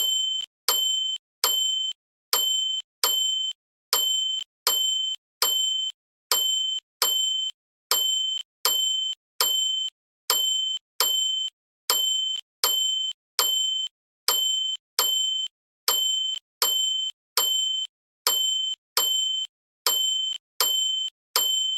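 A bell ringing over and over in short, bright dings, about one every 0.7 seconds, each cut off abruptly. Every few strikes there is a slightly longer gap.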